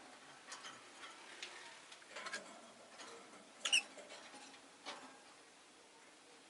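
Rosy-faced lovebird making soft scattered clicks and short chirps, with one louder, high chirp a little past halfway.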